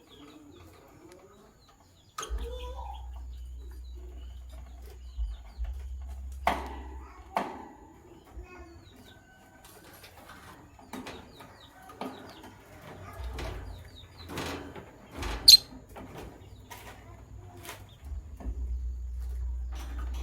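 Lovebirds chirping, a scatter of short sharp chirps and clicks, the loudest about fifteen seconds in, over an intermittent low rumble.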